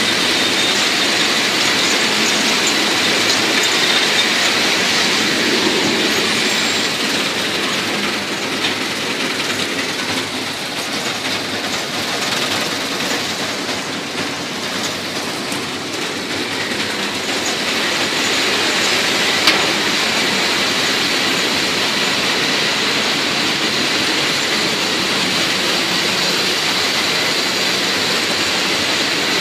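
Stationary hop-picking machine running: a steady, loud mechanical clatter and hum from its conveyor belts and sieves, with a faint high whine throughout. One sharp click about twenty seconds in.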